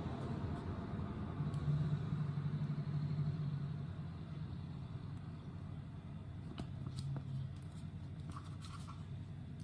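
A steady low hum, stronger for a couple of seconds near the start, with a few faint light clicks in the second half.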